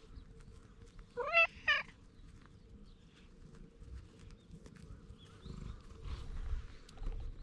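A cat gives one two-part meow about a second in, a short call that rises in pitch.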